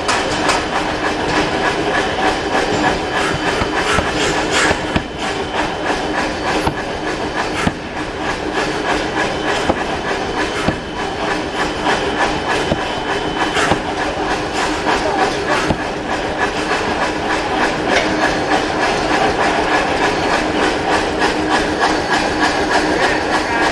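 Anyang C41-150kg pneumatic forging hammer running, its ram striking a red-hot steel ball blank in rapid, evenly repeated blows over a steady machine hum.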